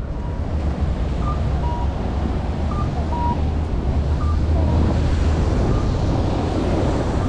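Wind rumbling on the microphone over steady street noise, with a few faint short high beeps.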